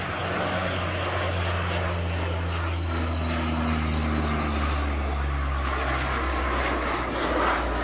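CP-140 Aurora's four Allison T56 turboprop engines and propellers droning in a low flypast, a steady deep propeller hum with a rushing wash above it. The pitch drops a little about halfway through as the aircraft passes.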